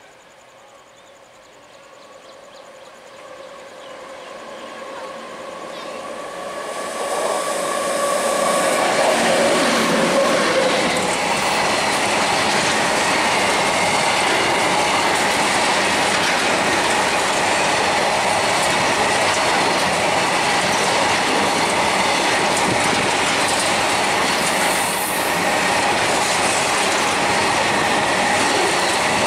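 Freight train led by a WAG-9 electric locomotive approaches, growing steadily louder over the first eight seconds or so. Its long rake of covered wagons then runs past close by in a steady rumble, with the clickety-clack of wheels over rail joints.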